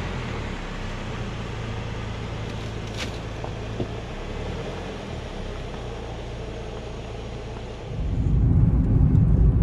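Hyundai i10 engine idling with a steady low hum as the car, its automatic gearbox in reverse, rolls slowly back off drive-on ramps. About eight seconds in, a louder low rumble of road noise inside the moving car takes over.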